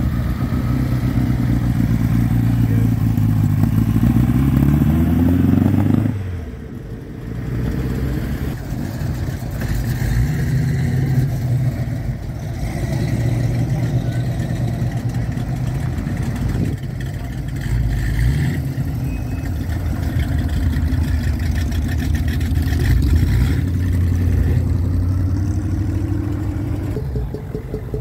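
Classic car engines pulling away one after another. A rising engine note builds over the first few seconds and breaks off suddenly about six seconds in. Engines then run steadily as cars pass, and another rising note comes near the end.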